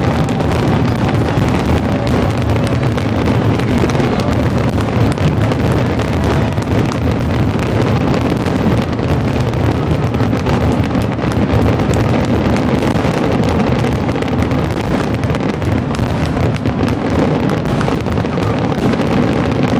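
Grand finale fireworks barrage: aerial shells bursting so rapidly that the bangs merge into one continuous loud rumble.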